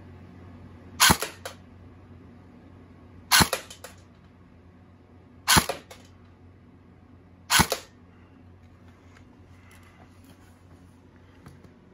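Electric airsoft rifle (M4-type AEG) firing single shots on semi-auto through a chronograph: four sharp shots about two seconds apart, each followed closely by a smaller knock or two.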